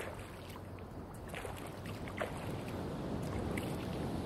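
Steady rush of water over a low rumble, with scattered small splashes.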